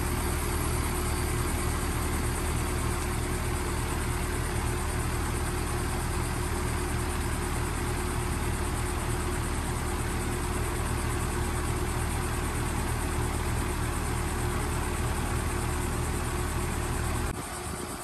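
2021 Maratherm 2-ton heat pump outdoor unit running in cool mode, its compressor and condenser fan giving a steady hum and whoosh. The sound drops off abruptly shortly before the end.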